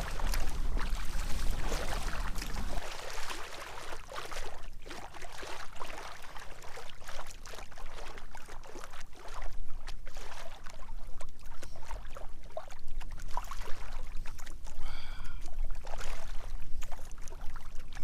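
Kayak paddle strokes: the blades dipping and splashing in the water, with irregular drips and swishes. A low rumble sounds under it and stops about three seconds in.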